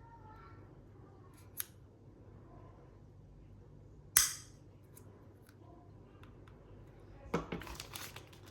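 Small plastic handling clicks: a faint click, then a sharp snap about four seconds in, and a cluster of clicks and rustling near the end, over a steady low hum.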